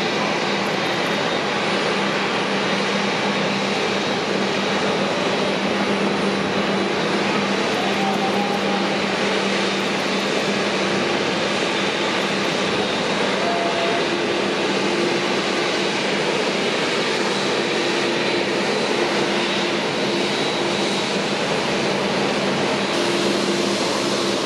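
A Boeing 767-300ER's jet engines running at low taxi power: an even rush of noise with a steady low hum and a faint high whine.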